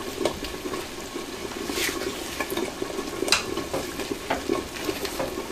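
A red silicone spatula stirs a thick cream sauce with shrimp and sausage in a cast-iron skillet. The stirring sounds wet and steady, with scattered short scrapes and taps against the pan.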